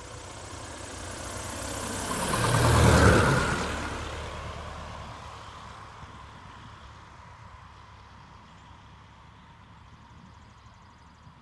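Piper Pacer's piston engine throttled back on approach, growing loud as the plane passes low overhead about three seconds in and dropping in pitch as it goes by, then fading steadily as the plane lands and rolls out down the grass strip.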